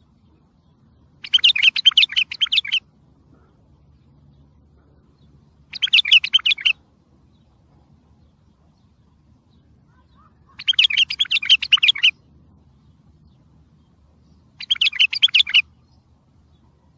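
Wild bulbul song: four short phrases of rapid, warbled notes, each about a second long and several seconds apart.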